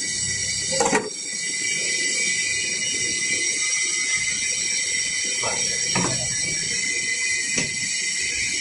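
Steady high hiss and whine of dry ice production machinery running, with a few short knocks as dry ice blocks are handled, bagged and set on a scale.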